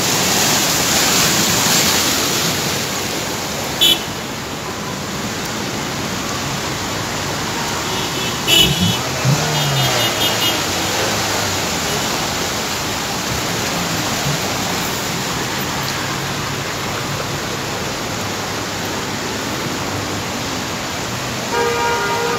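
Rain and floodwater on a road, a steady hiss of water as cars drive through it, loudest in the first few seconds as a car pushes a wave across the flooded lane. A car horn sounds briefly near the end.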